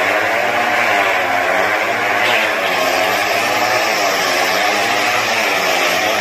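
Motorcycle engines running inside a steel-mesh globe of death, their pitch rising and falling in waves as the riders circle the cage.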